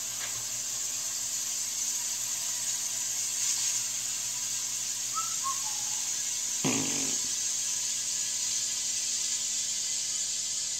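Compressed air hissing steadily from a shop air hose into a stainless solvent-tank flamethrower as the tank is pressurised toward about 100–110 PSI. A short falling whistle and a brief louder low sound come about halfway and two-thirds of the way in.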